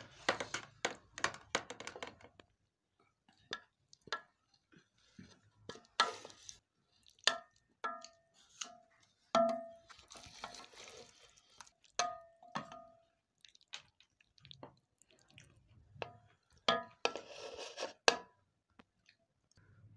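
Serving spoon scraping through cooked minced meat in a cooking pot and clinking against the pot and a ceramic plate while the keema is dished out. The sound is scattered taps, several of them ringing briefly, with short bouts of scraping.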